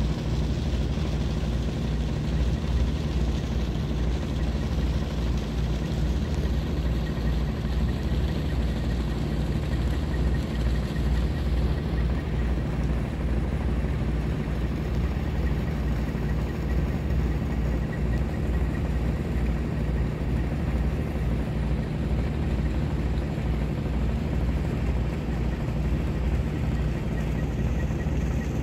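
Steady low drone of a ship's diesel engine running at cruising speed, with a constant hiss over it.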